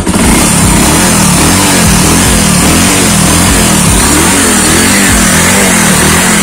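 Bajaj Pulsar 180's single-cylinder, twin-spark engine, fitted with twin mufflers, being revved up and down in quick repeated throttle blips, about two a second.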